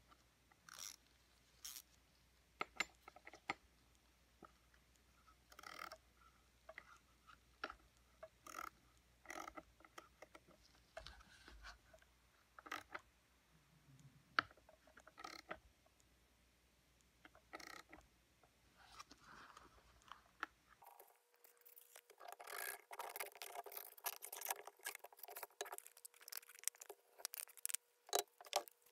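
Scattered clicks and scrapes of a socket ratchet and the metal shredder blade being worked loose on the impeller hub of a shredder vac. About two-thirds of the way through, a denser spell of crackling, rustling handling noise takes over.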